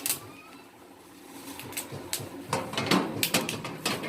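Metal baking pan of an electric oven clinking and clattering as it is handled and slid into the oven's rack slots: two clicks at the start, then a quick run of knocks and rattles from about halfway through.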